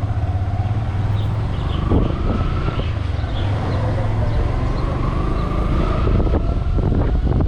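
Motorcycle engine running under way, a steady low drone with a fainter whine that rises in pitch twice as it accelerates.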